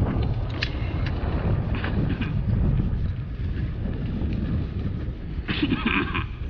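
A vehicle running on the move, a steady low rumble with wind buffeting the microphone. A short, higher-pitched sound cuts in about five and a half seconds in.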